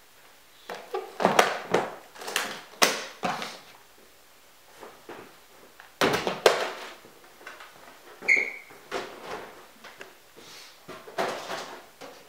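Clatter and knocks of household objects being picked up and set down on a kitchen counter, in several bursts, with a brief high ringing tone a little past the middle.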